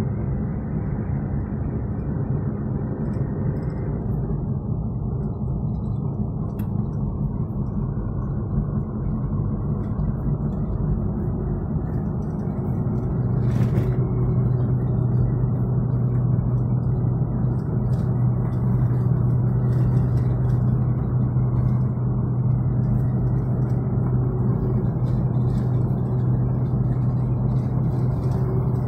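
Steady road noise and engine drone heard inside a moving Ford car's cabin. A low steady hum grows stronger about halfway through and holds.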